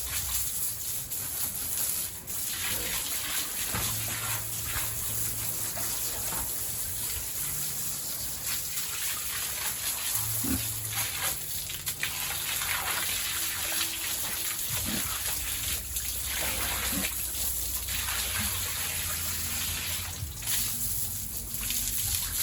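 Water gushing and splashing steadily while a pig pen is washed, with short pig grunts now and then and a low hum that comes and goes.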